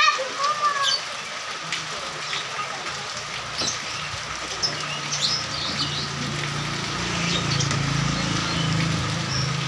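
Steady rain falling on a wet road, with small birds chirping now and then. In the second half a motorcycle's engine hum grows louder as it rides past on the wet road.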